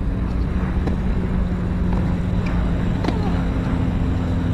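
Tennis rally on a hard court: racket strikes and ball bounces as sharp pops every second or so, the loudest about three seconds in, followed by a player's short falling grunt. A steady low engine-like hum runs underneath.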